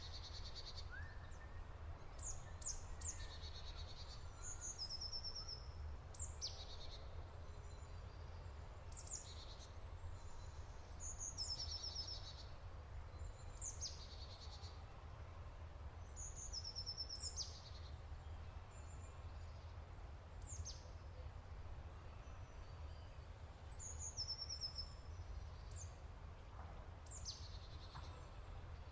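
A songbird repeating a short, high song phrase every few seconds: a quick downward sweep followed by a brief run of notes. A steady low rumble lies beneath it.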